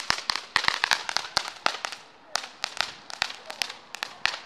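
Ground fireworks going off in a fast, irregular string of sharp cracks and pops. The string thins out for a moment about two seconds in, then the cracking picks up again.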